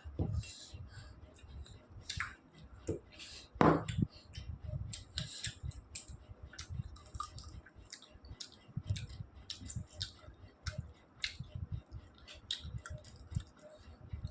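Close-up eating sounds: wet chewing and lip-smacking clicks, with a louder knock about three and a half seconds in, as of a plate or utensil.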